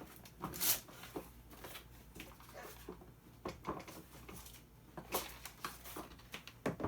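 Scattered light clicks, taps and rattles of plastic parts and small hardware being handled while the rear motor and wheel assembly of a ride-on toy is taken apart, a few sharper clicks standing out.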